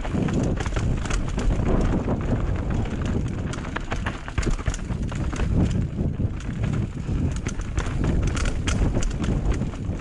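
Chainless enduro mountain bike rattling down a rough, rocky dirt trail: tyres crunching over stones and roots, with a steady run of sharp clicks and knocks from the frame and suspension taking the hits.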